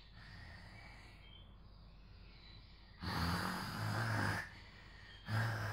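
A person doing mock snoring in imitation of the father's snore: one long, loud, rasping snore about three seconds in, and another beginning near the end.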